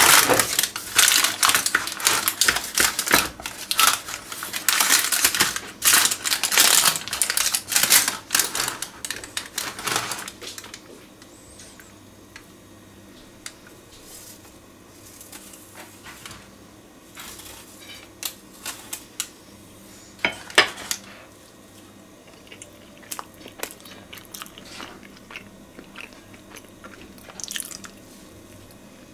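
Dense crunching and crackling of crisp food for about the first ten seconds, then scattered light clicks and taps.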